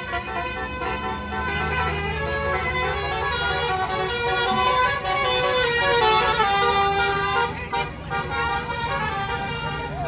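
A tour bus's musical 'basuri' telolet air horn playing a tune of held notes that change pitch in steps, with engine noise underneath.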